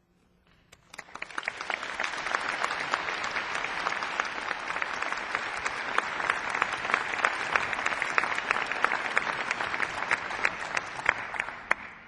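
Audience applauding after a musical piece, starting about a second in, holding steady, and fading away near the end.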